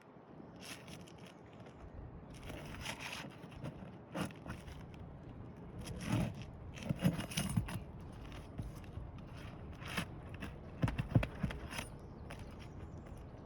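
Irregular scraping, rustling and knocking of shingles being lifted and worked loose during a roof repair, with clusters of sharper knocks about six to seven seconds in and again around eleven seconds.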